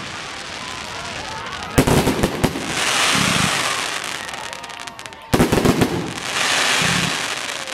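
Aerial fireworks shells bursting at close range: a cluster of sharp bangs about two seconds in and another about five seconds in. Each cluster is followed by a couple of seconds of loud hiss as the stars burn out.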